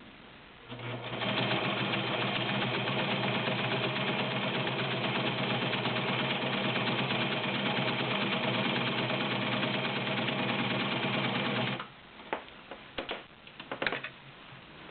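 Vintage White model 614 all-metal 1.3 amp sewing machine running steadily as it sews a stretch stitch, starting about a second in and stopping sharply near the end, followed by a few light clicks.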